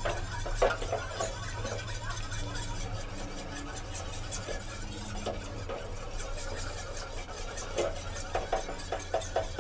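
Metal spoon stirring a thickening sauce in a stainless steel saucepan, with light, irregular scraping and clicking against the pan, over a steady low hum.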